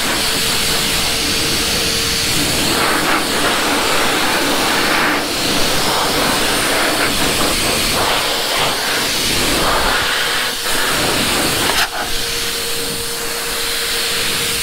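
Adam's Polishes Air Cannon car dryer blowing a steady, loud stream of air through its hose and nozzle, blowing water out of a wet chrome grille and bumper. A faint steady whine from its motor sits under the rush of air for the first two seconds and comes back about twelve seconds in.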